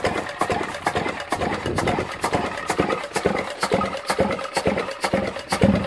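Lister CS single-cylinder diesel stationary engine running steadily, its twin flywheels turning, with a regular beat of sharp knocks about twice a second.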